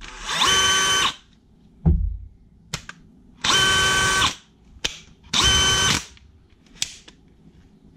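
DeWalt cordless hammer drill run free in three short bursts of about a second each, the motor whining up and dying away each time. Light clicks fall between the runs, with a thump about two seconds in.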